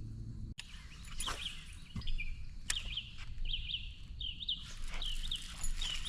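A songbird calling over and over in short, high, quick chirps, with a few sharp clicks and knocks. A low steady hum cuts off suddenly about half a second in.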